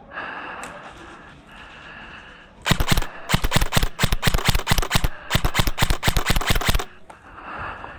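Airsoft guns firing rapid strings of shots in several bursts, starting about three seconds in and stopping about a second before the end.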